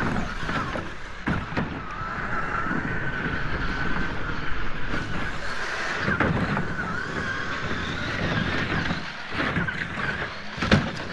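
Traxxas TRX-4 Land Rover Defender RC crawler's electric motor and gears whining, the pitch wavering with the throttle, as its tyres crunch and scrabble over loose gravel, with wind on the microphone. A sharp thump near the end as the truck lands from a jump.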